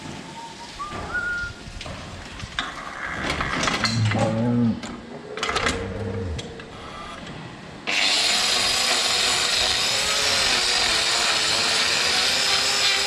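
Angle grinder with a hoof-trimming disc starting about two-thirds of the way in and running steadily against a cow's hoof, a loud even hiss. Before it, a few scattered metal knocks.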